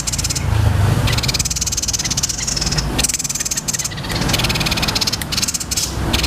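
Small songbird giving harsh, very fast rolling trills in repeated bouts with short breaks, a roll like that of fighting Eurasian tree sparrows, over a steady low hum.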